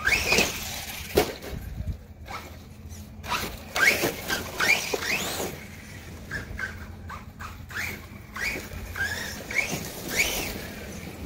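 Redcat Landslide XTE brushless electric RC monster truck on 4S LiPo being driven in short throttle bursts: the motor and gears whine up in pitch with each burst, about ten times, with sharp knocks from the truck hitting the ground, the loudest about a second in.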